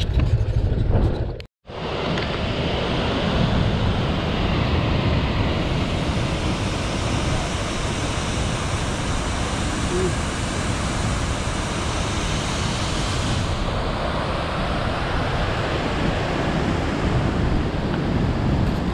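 Steady rushing wind noise on the microphone of a moving motorcycle, after a brief cut-out about one and a half seconds in.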